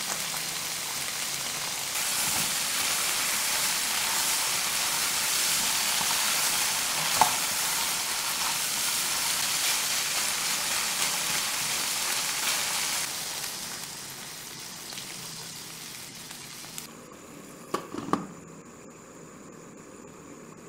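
Eggplant and ground beef sizzling in a nonstick pan while a silicone spatula stirs and turns them. The sizzle fades after about thirteen seconds, and near the end come a couple of knocks as a glass lid is set on the pan.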